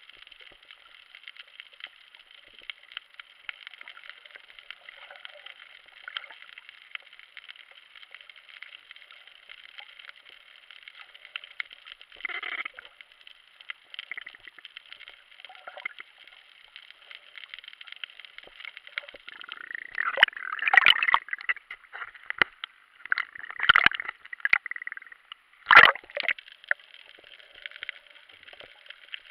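Muffled underwater sound picked up by a camera in a waterproof housing on a coral reef: a steady thin hiss with many small clicks. A few louder sloshing bursts come in the second half, the sharpest near the end.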